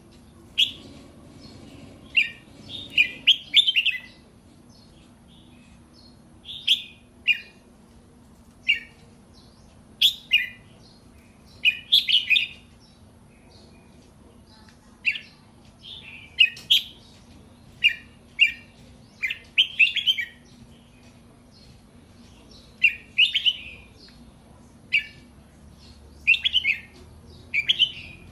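A young pet bird, about five to six months old, practising its song: short, irregular phrases of high chirps and whistled notes, with pauses of a second or more between them.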